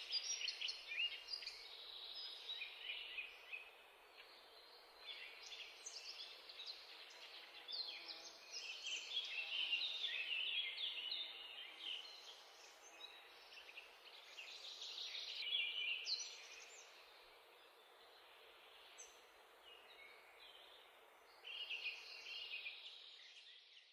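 Small birds chirping and twittering in rapid high calls over a steady hiss.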